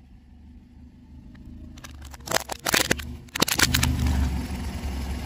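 Car tyre rolling over a row of whole cucumbers, cracking and snapping them in a quick run of crunches about two seconds in. A steady low rumble of the car follows.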